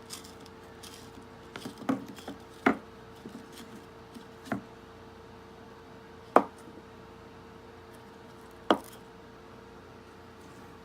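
Scattered knocks, clicks and light scrapes of a refrigerator water filter's cut-open plastic housing and inner carbon cartridge being handled as the cartridge is pushed out, the sharpest knock about six seconds in. A faint steady hum runs underneath.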